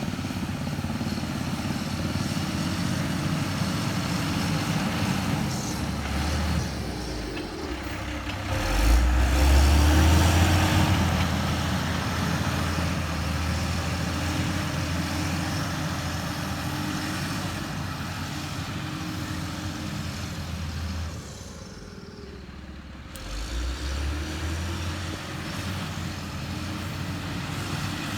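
Diesel engine of a heavy construction machine running steadily, swelling louder about a third of the way through, then dropping away briefly for a couple of seconds later on before picking up again.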